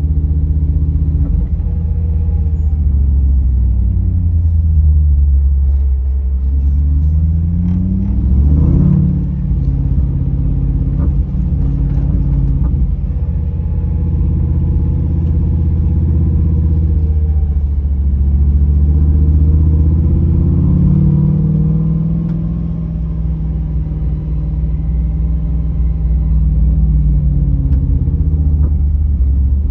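Car engine running hard and revving, its pitch rising and falling several times as the vehicle drives off-road, with a sharp rise and drop about a third of the way in.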